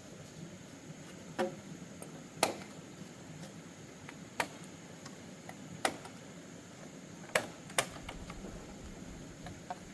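Six sharp knocks at uneven intervals over a steady hiss, the last two close together.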